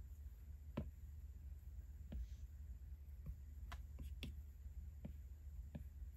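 Stylus tapping on an iPad screen: about eight light, irregularly spaced taps, the first the loudest, over a steady low hum.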